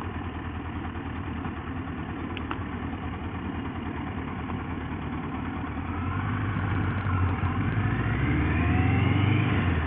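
Motorcycle engine running low and steady as the bike slows and waits at a roundabout, then revving up and rising in pitch as it pulls away, starting about six seconds in.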